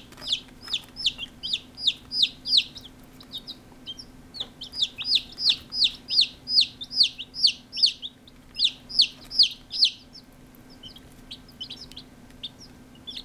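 Day-old chicks peeping: a rapid run of high calls, each falling in pitch, about three a second, with a short lull about four seconds in and quieter peeps near the end.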